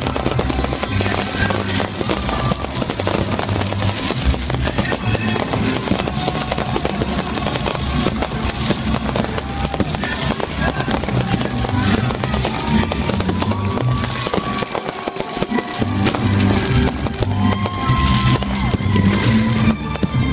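Fireworks crackling and popping densely over music with a steady low beat; the bass drops out briefly about fifteen seconds in.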